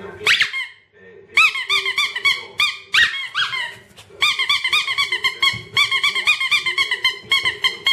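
Rubber-bulb bicycle horn squeezed over and over, giving short high squeaks that rise and fall in pitch: a few at first, then a fast unbroken run of about four or five a second through the second half.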